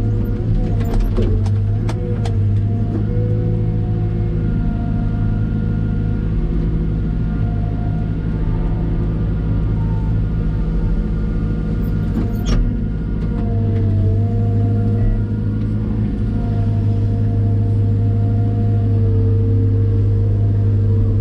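Cat M313D wheeled excavator's diesel engine running steadily, with a whine on top that shifts in pitch now and then as the machine works. Sharp clanks come several times in the first couple of seconds and once more near the middle.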